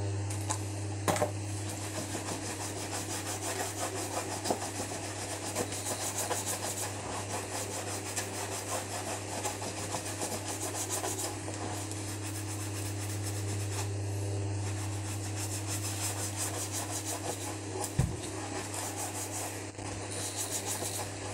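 A self-shine sponge rubbed briskly over a leather shoe to raise the shine, a continuous dry rubbing in quick back-and-forth strokes. A steady low hum runs underneath, and there is a short knock near the end.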